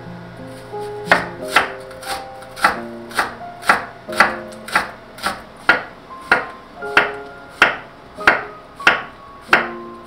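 Kitchen knife chopping food on a cutting board in a steady rhythm of about two strokes a second, starting about a second in.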